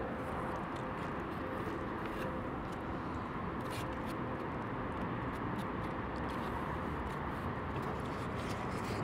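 Steady hum of city traffic, with faint scattered clicks and chewing as a man eats from a takeout container.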